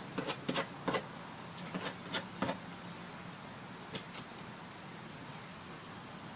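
Mille Fleur d'Uccle bantam hen preening: a run of short, sharp clicks and rustles of beak working through feathers, about seven in the first two and a half seconds and two more about four seconds in, over a faint steady hum.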